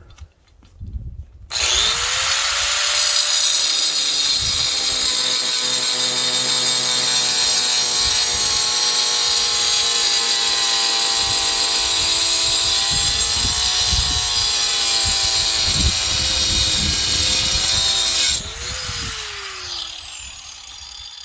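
Angle grinder with a cut-off wheel cutting through the weld on a steel transformer housing. It spins up about a second and a half in and runs loud and steady, its pitch dipping slightly under load, then is released near the end and winds down in a falling whine.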